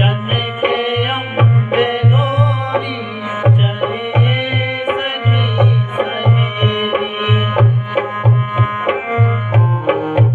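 Instrumental music: a tabla-style hand drum beating a steady rhythm under a sustained melody line.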